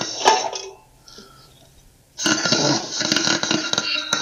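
Aerosol can of carburetor cleaner hissing as it is sprayed at a gummed-up, sticking engine valve to free it. A short spray comes first, then a longer spray of about two seconds starting about two seconds in.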